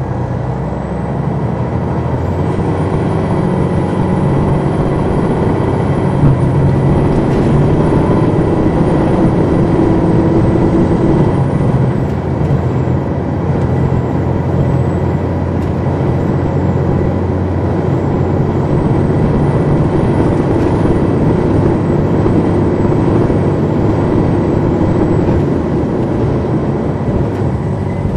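Detroit Diesel Series 60 engine of a 2002 MCI D4000 coach, heard from inside the bus as it drives. It grows louder over the first few seconds, then runs steadily with small changes in pitch. A faint high whine comes and goes.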